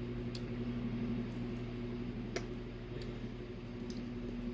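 Steady low hum of a few fixed tones, with a few faint, short clicks scattered through it.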